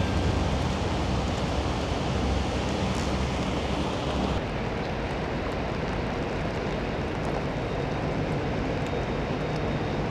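Steady rain and strong wind, the wind rumbling on the microphone. A faint low steady hum joins in the second half.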